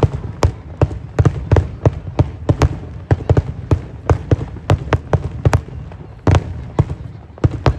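Fireworks display: a rapid, irregular barrage of sharp bangs from bursting aerial shells, about three a second, over a low rumble.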